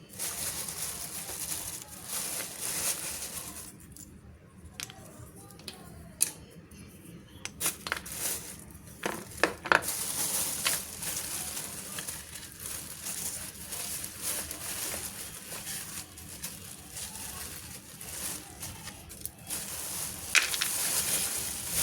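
Packaging being handled and opened: crinkling and tearing, with scattered sharp clicks and knocks.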